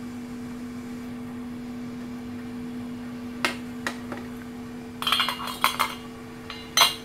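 Metal clinks and knocks from a stainless-steel spatula and wok being handled on a gas stovetop: a few single clicks, a cluster of clinks about five seconds in, and one sharp clink near the end, over a steady hum.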